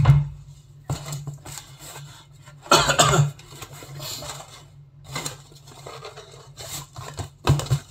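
Cardboard food boxes handled on a table. A sharp knock comes at the start as a lid is shut. About three seconds in there is a louder scraping rub, then a few lighter taps.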